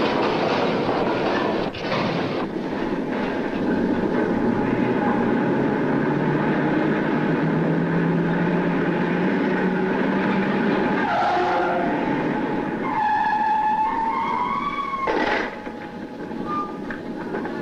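Oil drilling rig machinery running on the derrick floor, a loud, steady mechanical din with a low steady drone that builds up partway through. Near the end it gives way to a few pitched tones that slide slightly upward, cut by one sharp burst.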